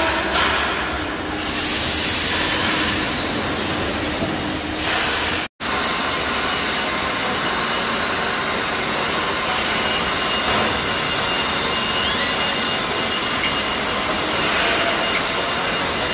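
Steady rushing, machine-like noise with faint steady tones in it, which cuts out completely for a moment about five and a half seconds in.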